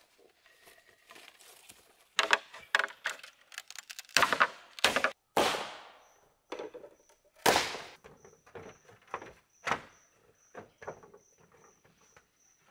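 Hollow green bamboo poles knocking and clattering as they are handled and laid down: a series of sharp knocks, several of them loud with a short ringing after them. From about halfway through, a faint high chirp repeats steadily.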